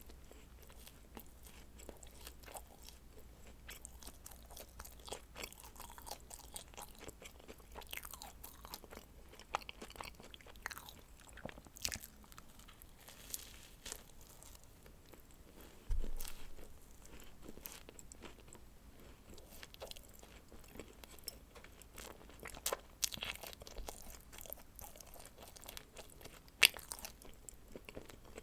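Close-miked eating of dacquoise, meringue-almond sandwich cookies with cream filling: crisp bites and wet chewing clicks throughout. A single low thump comes about sixteen seconds in.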